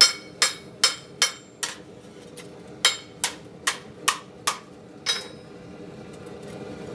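Hand hammer striking a metal frying-pan blank held in tongs on a cylindrical block, dishing it into shape: five quick ringing blows, a short pause, then six more that stop about five seconds in.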